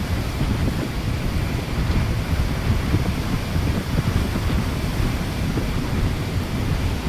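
Strong wind buffeting the microphone, with the wash of rough sea waves underneath; the gusty rumble stays constant throughout.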